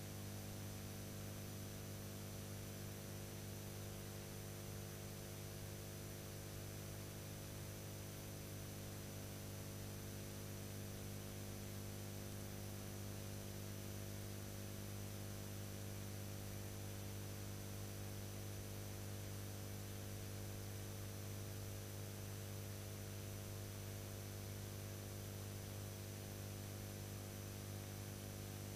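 Steady low electrical mains hum with many overtones, under a constant hiss and a faint high whine, unchanging throughout; the soundtrack carries no other sound.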